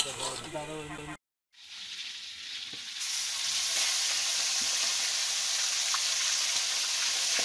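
Steady sizzling of food cooking in an iron wok over a wood-fired clay stove, louder from about three seconds in. Brief voices come before a moment's dropout about a second in.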